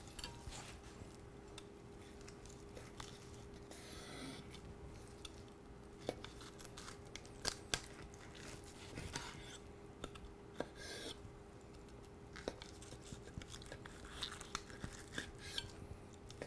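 Faint handling of smoked beef ribs on a wooden cutting board: soft tearing and rustling as gloved hands pull the rack apart, and scattered sharp clicks as a knife cuts through between the bones onto the board. A faint steady hum runs underneath.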